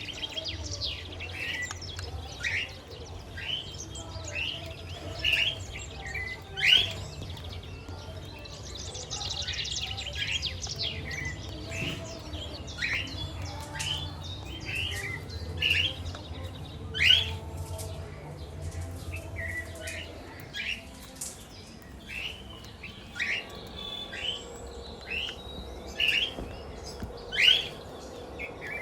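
Pet parrots, a lutino cockatiel and budgerigars, chirping: short rising chirps repeat about once a second, with bouts of higher, quicker chatter. A steady low hum sits underneath and stops about two-thirds of the way through.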